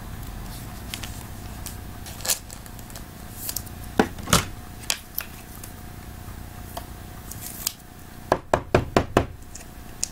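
Sharp clicks and taps of trading cards and small cardboard card boxes being handled and set down on a table, with two louder knocks about four seconds in and a quick run of clicks near the end.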